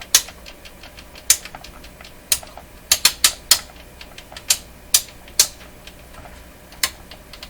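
Switches on an Advance Instruments OS250 oscilloscope being clicked back and forth, about a dozen sharp, irregular clicks, some in quick runs, over a low hum. The switches are being worked to test them, and their contacts are dirty.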